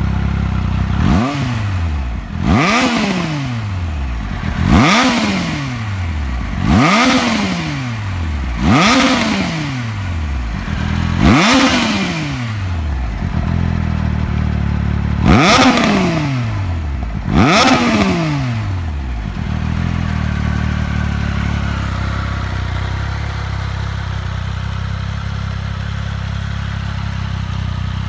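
2018 Triumph Speed Triple RS's 1050 cc inline-three engine through an Arrow exhaust silencer, stationary, revved in eight quick blips about two seconds apart, each rising and dropping back to idle. After that it settles into a steady idle for the last several seconds.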